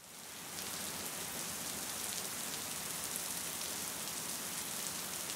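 Steady rain falling on pavement and rooftops, fading in over the first half second.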